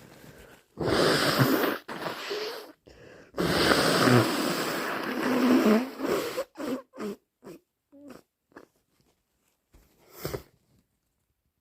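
A person with a cold blowing a congested nose: two short blows, then one long blow of about three seconds, followed by a run of short sniffs and one last sniff near the end.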